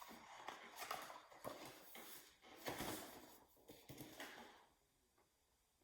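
Faint rustling and light knocks of a picture book being handled and opened, then near silence for the last second or so.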